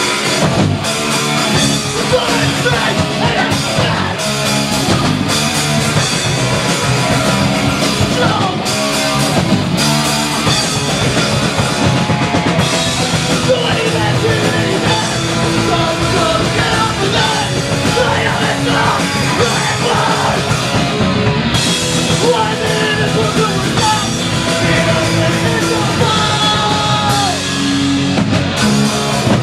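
Live rock band playing loudly, with guitars, bass and drum kit, and a vocalist shouting into the microphone over them.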